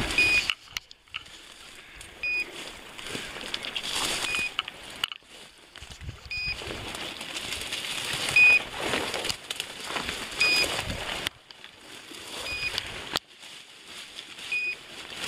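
A pointing dog's beeper collar pipping once about every two seconds, each pip short and high. Dry brambles and bracken rustle and crackle as someone pushes through the cover.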